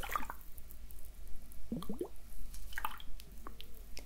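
Liquid sloshing and gurgling inside two small capped glass flasks tipped near the microphone, with a quick run of rising gurgles about two seconds in and a few light clicks.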